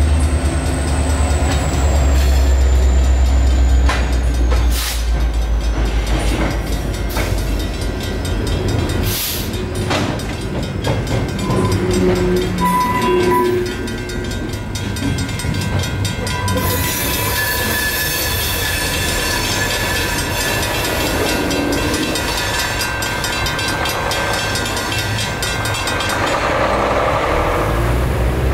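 Union Pacific freight train led by an EMD GP60 diesel locomotive passing through a grade crossing. A heavy diesel rumble is strong for the first four seconds, then wheels click over the rail joints as the cars go by. The crossing's mechanical bells ring rapidly and stop a couple of seconds before the end.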